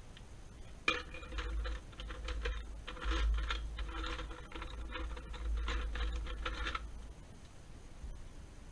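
Pencils clattering and clicking against each other and the sides of a metal pencil tin as a hand rummages through it. A quick, irregular run of clicks with a faint metallic ring starts about a second in and lasts about six seconds.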